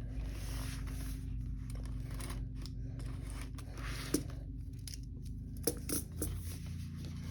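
Packaging of a boxed colour pencil set being opened: several rustling, tearing strokes of the wrapping with a few small clicks, over a steady low hum.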